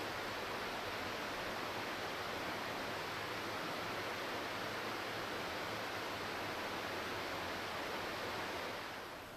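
A steady, even rushing noise that eases off near the end.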